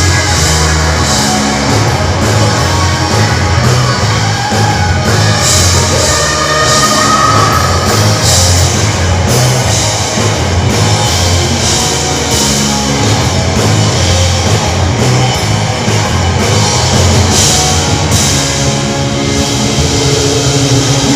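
Loud rock music in a heavy-metal style, with a drum kit playing steadily throughout.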